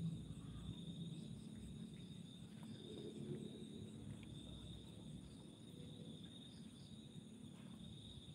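Faint, steady chorus of night insects: a continuous high-pitched trill over a low background rumble.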